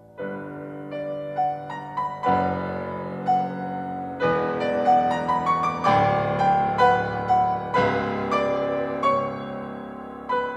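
Solo piano music in a classical style: a melody over struck chords, each note ringing on and slowly fading.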